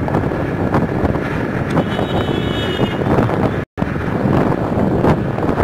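Wind rushing over the microphone of a moving scooter, mixed with road and traffic noise. The sound cuts out for an instant about two-thirds of the way through.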